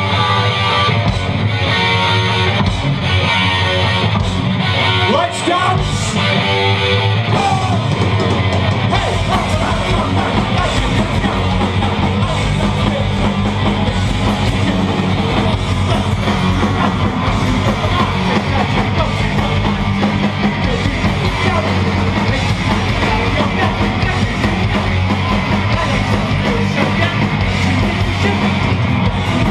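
Loud punk/heavy metal rock music with electric guitar and yelled singing.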